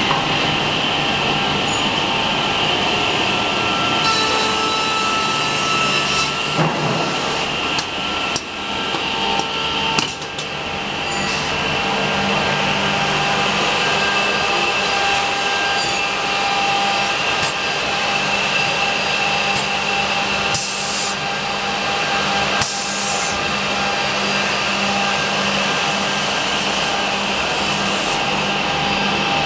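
HOMAG Optimat KL 77 edge banding machine running, its motors and dust extraction giving a steady hum. Scattered clicks and knocks come mostly in the first third and again about two-thirds through.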